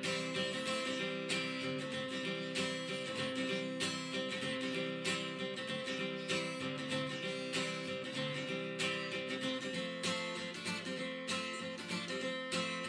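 Background music led by strummed guitar, with a steady rhythm of strokes.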